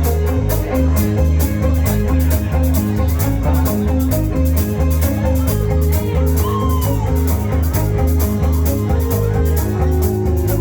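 Live rock band playing an instrumental passage: a steady drum beat with cymbals, bass and guitar. The guitar bends notes a little past halfway and again near the end.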